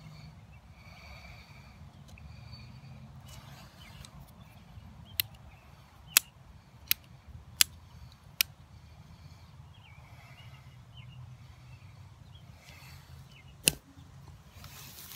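Knife blade working a small piece of wood, giving five sharp clicks about three-quarters of a second apart midway and one more near the end, over a faint outdoor background.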